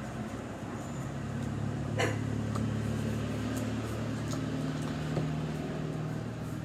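A steady low machine hum, with a few short light clicks and taps over it.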